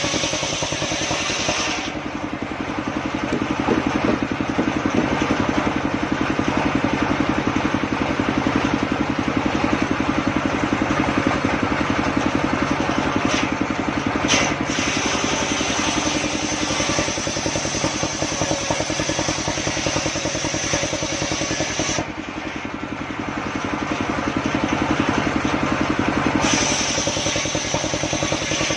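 Homemade engine-driven circular saw rig running steadily at speed. Its sound changes about two seconds in and again for about four seconds near the end.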